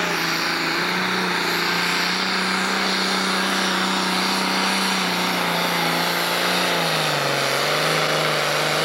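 John Deere Pro Stock pulling tractor's turbocharged diesel engine running flat out as it drags the weight-transfer sled, a loud steady scream. Its pitch sags about seven seconds in and then climbs back.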